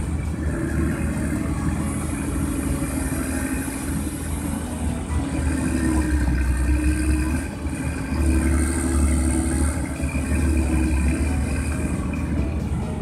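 Åkerman EW230B wheeled excavator's diesel engine running under working load, its note rising and falling a few times.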